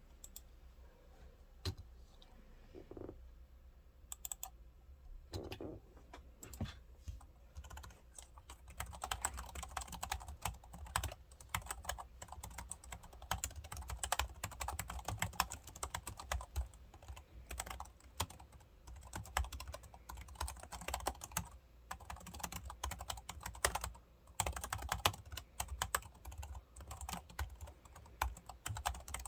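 Typing on a B.Friend RB730 scissor-switch keyboard: scattered single keystrokes at first, then a fast, steady stream of key clicks from about eight seconds in.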